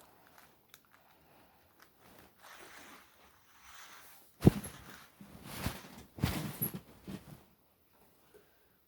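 Handling noises: faint rustling, a sharp knock about halfway through, then two short scraping or ripping noises.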